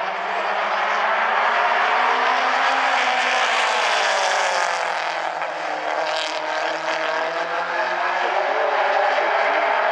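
Pack of mini stock race cars running at racing speed, several engine notes overlapping. The engines' pitch drops about midway and climbs again as the cars come off the throttle and accelerate back through the turn.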